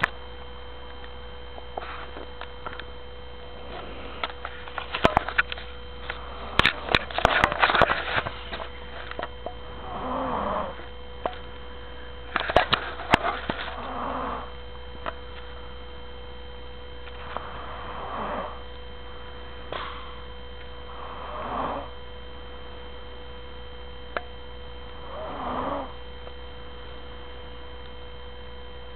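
A sleeping woman snoring, one drawn-out snore every three and a half to four seconds starting about ten seconds in, over a steady electrical hum. Before that comes a stretch of loud, sharp crackling and rustling.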